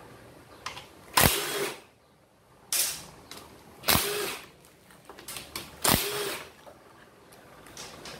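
Cordless drill-driver with a socket unscrewing the bolts of a scooter's CVT transmission cover: four short bursts of the motor spinning, each stopping as the motor winds down, with a few light clicks of the tool and socket between the third and fourth.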